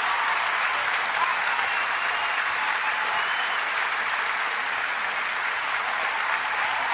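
Steady audience applause from a live music recording.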